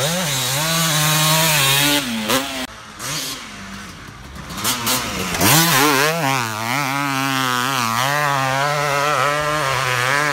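Two-stroke motocross bike engine revving hard: the pitch climbs and chops off about two and a half seconds in, drops back quieter, then comes in loud again as the bike passes close, with the revs swinging up and down through the rest.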